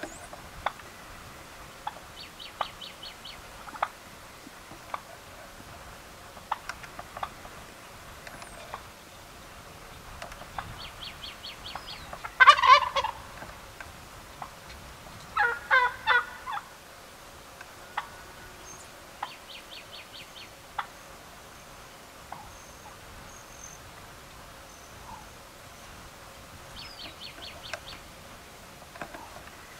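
Gould's wild turkey gobbling twice, each a loud rapid rattling gobble, the first about twelve seconds in and the second about three seconds later. Faint quick runs of high notes and light ticks sound now and then around them.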